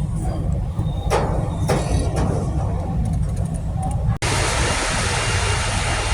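Road traffic noise: a steady low vehicle rumble with a couple of short knocks, which cuts off abruptly about four seconds in to a steadier rushing hiss over the same rumble.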